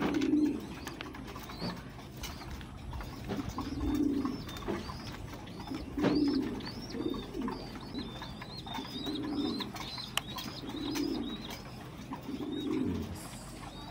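Pigeons cooing: low, throaty coo phrases repeat every one to three seconds, about seven in all. From about four seconds in, faint high chirping runs behind them.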